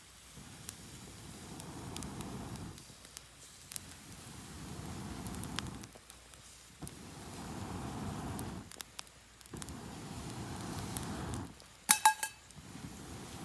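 Wood fire burning in a Picogrill fire pit, crackling with scattered sharp pops, under repeated swells of rushing noise about two seconds long with short gaps between them. Two loud ringing metal clinks come near the end.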